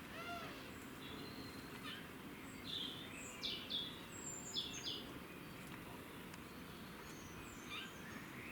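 High-pitched chirping calls: a short arcing call right at the start, then a cluster of quick chirps and falling sweeps in the middle and a few more near the end, over steady outdoor background noise.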